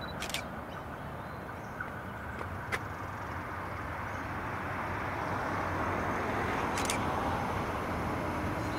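Two coupled 3000 class diesel railcars approaching, their engine drone and rail noise growing steadily louder, with three brief sharp clicks along the way.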